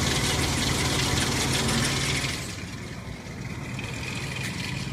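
Ford 4.0 L SOHC V6 idling with its timing chains rattling: wear bad enough at about 221,000 miles to call for a full timing chain replacement. The rattle is loud for the first two seconds or so, then the sound turns quieter and duller.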